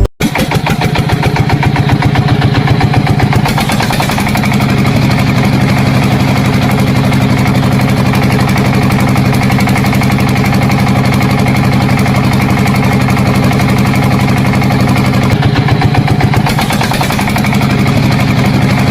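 A small engine running steadily with a rapid even beat; its note shifts slightly about three and a half seconds in and briefly again late on.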